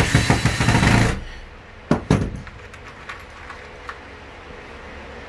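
Cordless drill driving a drywall screw through a steel bed hinge into the wooden platform, cutting off about a second in. Then two sharp clicks close together and a few faint ticks as the drill and hinge are handled.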